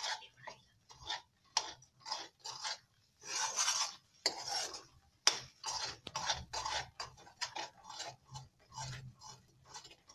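Metal ladle scraping and stirring thick atta halwa (kada prashad) around a metal kadai, in quick strokes about two or three a second, with one longer scrape a few seconds in. The halwa is near done and starting to release its ghee.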